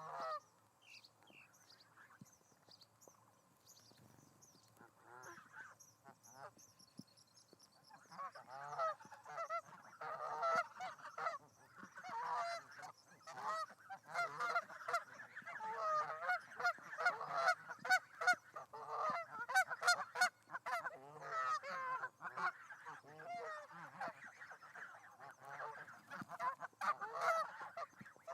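Birds calling over and over, many wavering calls overlapping, starting about eight seconds in after a quieter stretch, with a few short clicks among them.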